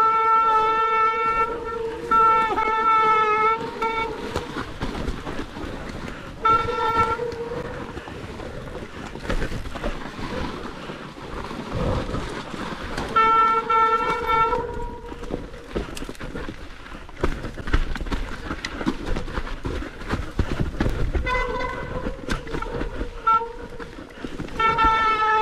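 Electric mountain bike's mid-drive motor whining in short bursts as the rider pedals, holding one steady pitch and spinning down with a falling whine near the end. Between bursts, tyres crunch through wet snow and slush while the bike rattles over roots and debris.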